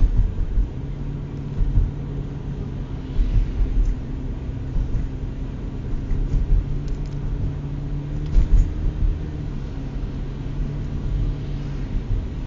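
Steady hum of a Toyota Matrix's engine and the low rumble of its tyres on a snow-covered road, heard from inside the cabin, with irregular low bumps.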